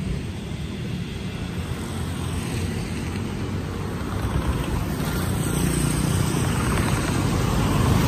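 Wind buffeting a phone's microphone during a bicycle ride, mixed with road traffic noise. The rushing rumble grows louder in the second half.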